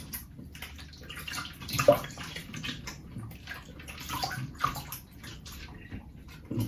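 Ice water splashed onto the face by hand in repeated irregular splashes, a rinse after shaving; the biggest splash comes about two seconds in.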